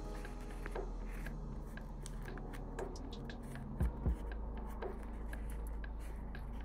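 A leather bifold wallet being handled and flexed by hand: small scattered rubs, creaks and taps, with two soft knocks about four seconds in.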